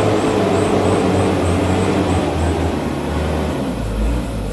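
Diesel engine of a Mitsubishi Fuso light dump truck running steadily while the truck is stuck in deep mud, the level easing down a little near the end.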